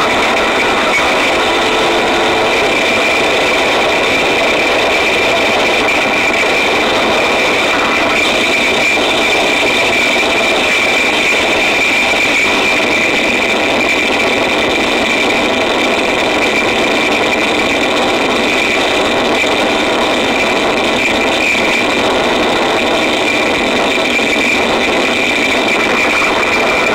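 Harsh noise wall: a dense, loud, unchanging roar of distorted noise with a bright hissing band up high and little bass.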